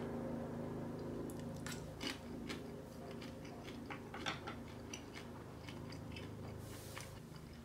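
A person chewing a large Sapporo flightless grasshopper (Sapporo fukibatta) simmered as tsukudani, with small irregular crackles and clicks as it is bitten and chewed. A faint steady hum runs underneath.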